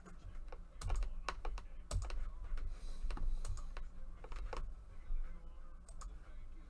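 Typing on a computer keyboard: irregular runs of sharp keystrokes with short pauses between them.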